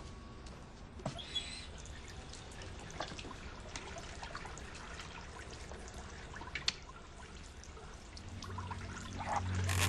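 A steady, water-like rushing hiss with scattered faint clicks. A low sustained tone swells in near the end.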